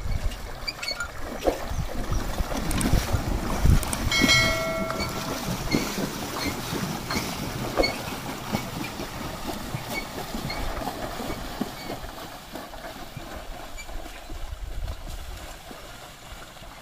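Bullock cart wading through shallow water: water splashing around the bullocks' legs and the cart wheels, and the loaded cart rattling and knocking as it rolls. A brief ringing tone sounds about four seconds in.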